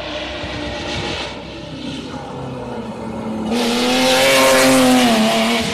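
A rally car's engine running hard, heard at a distance at first. About three and a half seconds in it gets much louder as the car passes close by, and its engine pitch holds high, then drops near the end.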